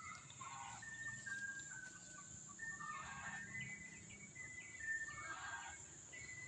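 Faint outdoor ambience: a steady high insect drone, with long held bird whistles that step between pitches and a few short calls of fowl or birds.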